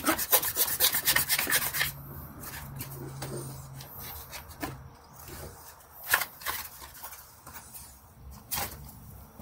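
Cardboard being cut and handled: a quick run of cuts and scrapes in the first two seconds, then rubbing and scraping as the cardboard is worked, with a sharp click about six seconds in and another near the end.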